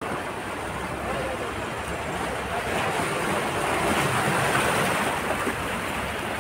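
Small sea waves washing in over flat shoreline rocks in a steady wash. It swells louder as a wave breaks in foam about four seconds in.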